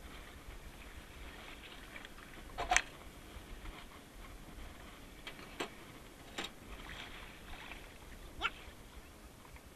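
Short knocks and squeaks of hands on a floating stand-up jet ski's fibreglass hull, its engine off, over faint background noise. The loudest squeak comes about three seconds in, with smaller knocks later.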